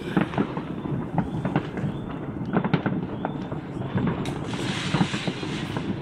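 New Year's fireworks and firecrackers going off across a city: a dense run of bangs and pops, with a spell of crackling hiss about four seconds in.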